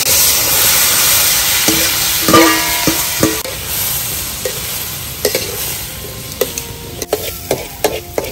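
Loud burst of sizzling as chopped tomatoes go into hot oil with frying shallots and garlic in a metal wok, fading over several seconds as they fry. A spatula stirs the food, knocking and scraping against the wok.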